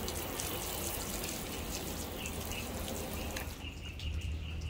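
Garden hose spray nozzle on its sprinkler pattern showering water onto a sealant-coated car hood, a steady hiss of water spattering on the paint. The spray stops about three and a half seconds in.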